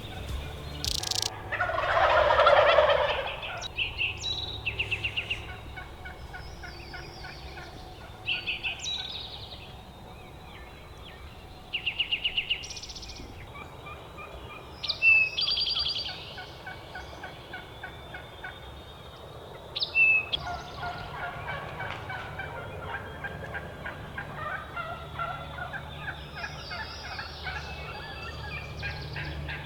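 Wild turkey gobbling, with one loud rattling gobble about two seconds in. Repeated shorter calls follow, and a busy chorus of calls builds in the second half.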